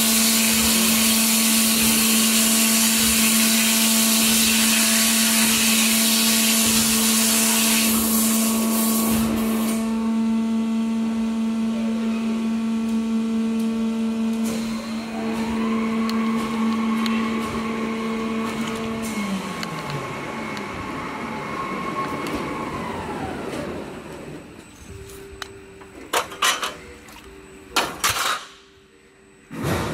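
WATERJET WF 1630 CNC water jet cutter running: the water jet hisses loudly over the machine's steady hum, then the hiss stops about nine seconds in. The hum and a whining tone carry on, the hum winding down about twenty seconds in and the whine falling away a few seconds later, followed by a few sharp knocks near the end.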